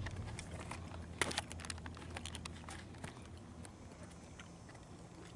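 Faint gym background: a low hum fading away, with scattered light clicks and knocks, the sharpest about a second in.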